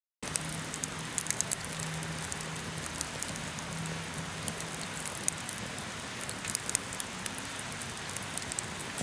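Wood fire burning in a square metal fire pit, freshly stoked, crackling with many small pops over a steady rush of flame.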